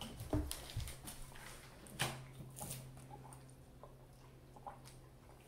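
Quiet handling knocks and a sharp click from a water bottle being picked up and opened, then faint swallowing sounds as it is drunk from.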